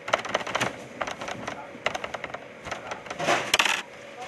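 Quick, irregular clicks and metallic clinks of work at a bakery's metal-topped table with stacked sheet pans, with a brief scraping rush a little past three seconds in, over a faint steady hum.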